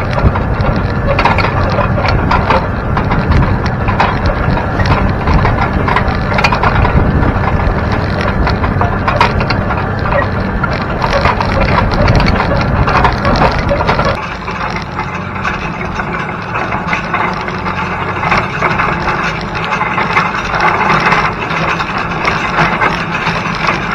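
Field cultivator shanks dragging through soil and cornstalk trash, heard close up from the implement: a continuous dense crunching, crackling rattle of dirt and stalks against the steel frame and springs. About 14 seconds in the deep rumble drops away and a thinner, lighter rattle remains.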